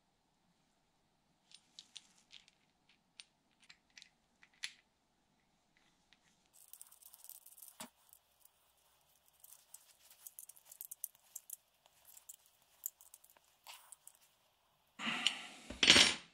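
Plastic rear-view-mirror mount handled in the hands with small clicks, then a long hex key turning the screw in the mount's ball joint with a scratchy grinding. Near the end comes a louder crunching rustle of the part being handled.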